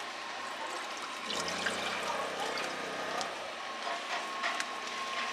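Soup broth with meat pieces poured from a plastic bag into a small saucepan, splashing and trickling. It runs heaviest from about a second in to past the middle, then thins to a trickle.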